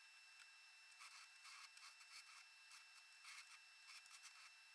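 Faint, irregular rubbing and scraping from about a second in: a cloth rag wiping a small steel plate and hands handling the plate on a belt grinder's work table.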